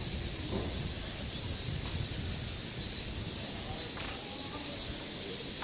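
Steady, high-pitched drone of a summer cicada chorus.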